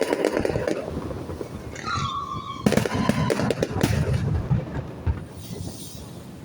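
Fireworks going off: crackling from a burst fades in the first second, then a short whistle falling slightly in pitch, a loud bang about two and a half seconds in, and a second or so of crackling after it.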